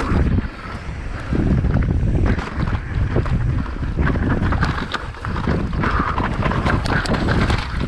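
Wind buffeting the microphone of a helmet or bike camera on a fast e-mountain-bike descent, over the steady rumble of tyres on a rough dirt trail. Frequent short clicks and clatters come from the bike rattling over rocks and bumps.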